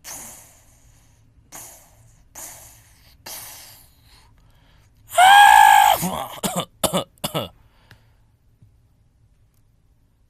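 A person coughing: a few short, breathy coughs, then a loud strained cry about five seconds in, followed by a quick run of coughs.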